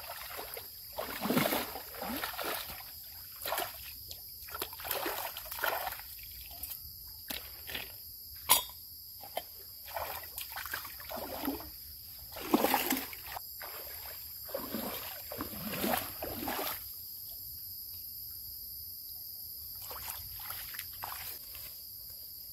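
Water splashing and sloshing in irregular bursts, with one sharp knock about eight and a half seconds in. A steady high insect drone runs underneath, and the splashing stops about seventeen seconds in.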